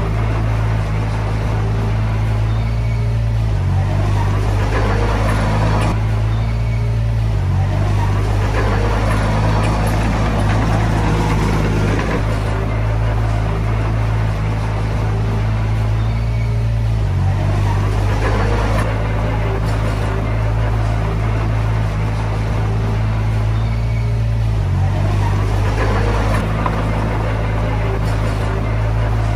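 Komatsu D20P bulldozer's diesel engine running under load as it pushes soil, its note shifting several times, with swells of mechanical clatter from the tracks and blade.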